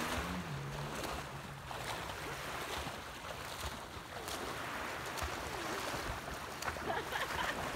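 Small sea waves washing onto a pebbly shore, with light splashing of water from wading and swimming.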